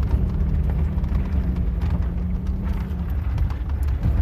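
Vehicle driving over a rough dirt trail: a steady low engine and tyre rumble with scattered knocks and rattles from bumps. The engine's hum drops away about three seconds in.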